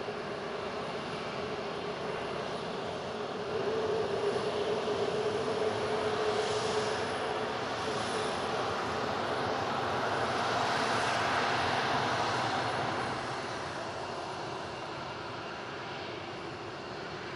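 Boeing RC-135W Rivet Joint's four CFM F108 turbofan engines running as the jet taxis past: a steady jet rush with a low hum that grows louder about four seconds in, swells again a little after ten seconds, then eases off near the end.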